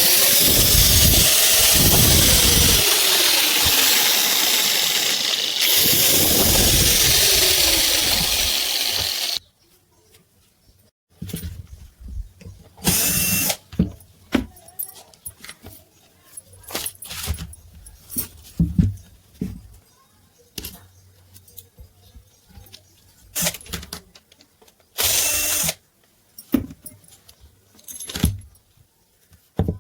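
A 1150 W angle grinder motor running loud for about nine seconds, its pitch sagging and rising, with a brief dip partway through. It then stops, and metal parts are clicked and knocked about, with two more short bursts of the motor.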